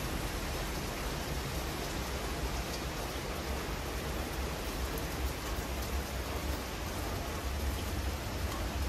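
Steady rain falling on the balcony and its plant leaves, an even hiss with a low rumble underneath.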